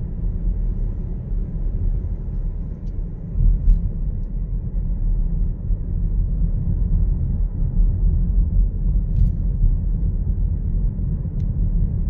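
Steady low rumble of a car driving along a street, heard from inside the car's cabin, with a few faint clicks.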